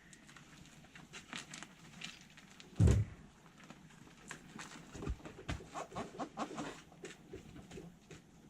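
A heavy motorcycle being wheeled off a ramp by hand: a heavy thump about three seconds in, then a quick run of knocks and clicks a couple of seconds later.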